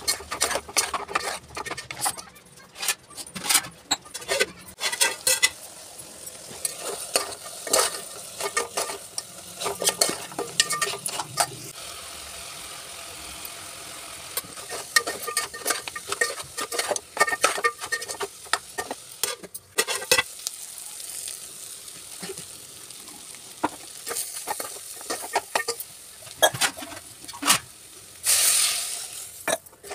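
Steel spoon stirring meat and spices in an aluminium pot, with irregular clinks and scrapes of the spoon against the pot and a wet mixing noise.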